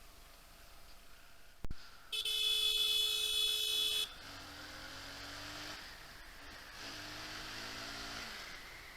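A vehicle horn sounds once, a steady buzzy note about two seconds long, followed by fainter sounds that fall in pitch twice.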